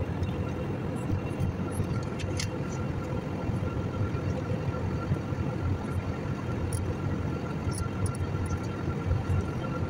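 Steady rumble and hiss of jet airliner cabin noise at cruise, engine and airflow heard from inside the cabin, with a faint steady whine over it.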